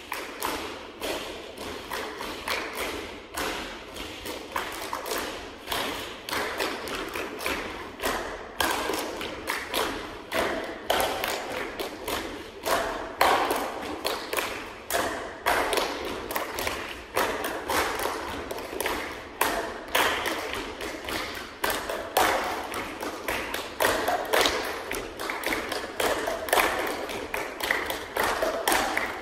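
A dense, fast run of percussive taps and thumps, several a second. It starts abruptly and keeps going without a break.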